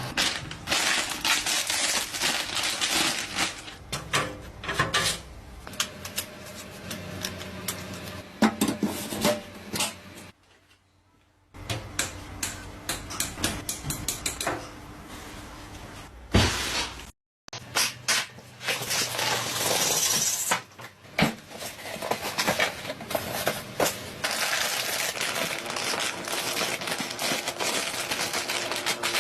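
Computer parts being handled and fitted together: a busy run of clicks, taps, clatter and rustling, broken off twice by abrupt cuts.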